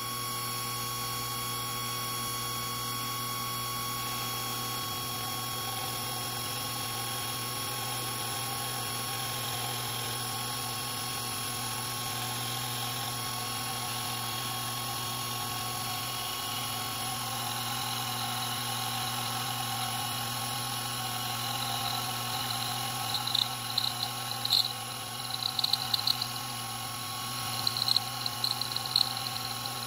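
Proxxon FD150/E precision lathe running steadily, a motor hum with a constant high whine, while a small brass workpiece is turned down. From about three-quarters in, short high-pitched scraping bursts come and go as the cutting tool bites into the metal.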